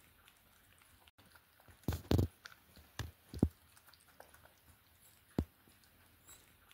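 Cat eating from a plastic bowl, chewing with irregular sharp crunches: a cluster about two to three and a half seconds in and one more near five and a half seconds.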